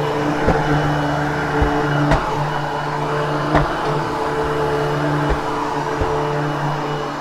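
Vacuum cleaner running steadily on carpet during post-vacuuming of a freshly cleaned carpet, with a constant motor hum and airflow hiss and several short knocks as it is pushed over the floor.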